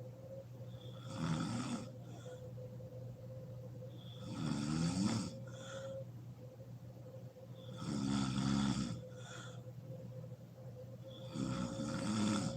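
A sleeping woman snoring: four loud, pitched snores about every three and a half seconds, each followed by a brief fainter breath sound, over a faint steady hum.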